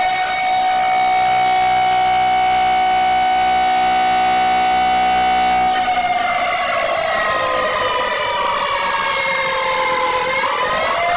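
Emergency alert siren wailing: one tone held steady for about six seconds, then sliding slowly down in pitch, and rising again near the end.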